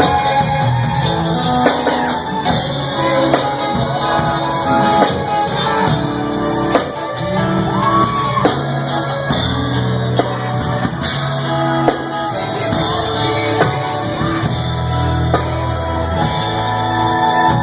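A band playing a song: singing over guitar and a drum kit keeping a steady beat.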